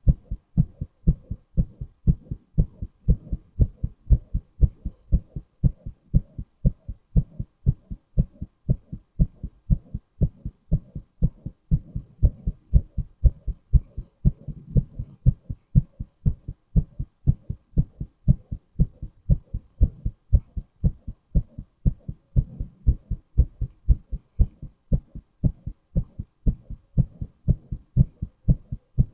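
A man's heartbeat, recorded close up: low, dull thumps repeating at a steady, even pace.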